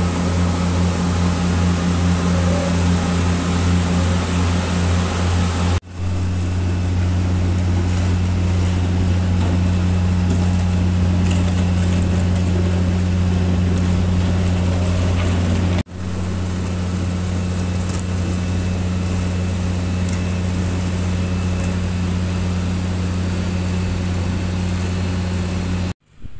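Large diesel engine of a tracked slipform concrete paver running with a steady low drone. The sound cuts out abruptly for a moment about six and sixteen seconds in, and again just before the end.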